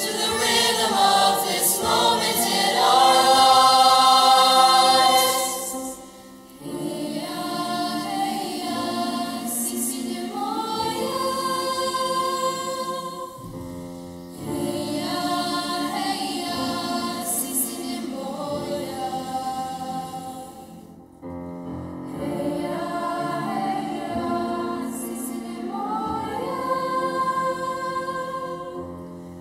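High school mixed choir singing in many voices, loudest over the first six seconds, with brief breaks between phrases about six and twenty-one seconds in.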